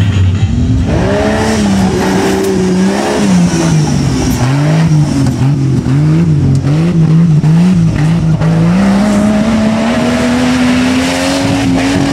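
Off-road racing buggy's engine revving up and down repeatedly as the throttle is worked under load on a dirt climb, then accelerating with a steadily rising pitch over the last few seconds.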